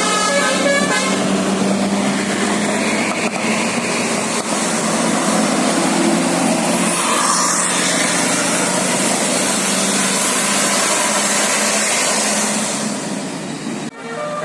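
Bus running close by: a steady engine drone under a loud rushing road and traffic noise, with no horn playing. The sound drops out abruptly near the end.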